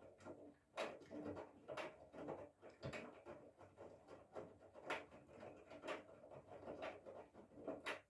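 Whirlpool FSCR90425 front-loading washing machine tumbling a wet load on a cotton 40°C wash: laundry lifting and dropping with splashes in the drum, with a stronger knock about once a second.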